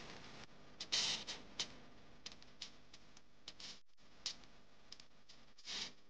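Faint, irregular clicks and ticks over a low background hiss, with a brief drop to silence about four seconds in.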